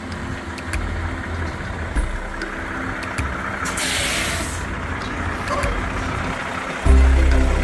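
Heavy truck engine running, with a short, sharp burst of air hiss about four seconds in, typical of truck air brakes. Background music comes in near the end.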